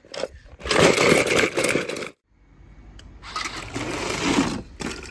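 Die-cast toy cars clattering against each other and a plastic bucket as a hand rummages through them, then a rolling rattle of small toy cars running down a plastic slide, building up and then fading.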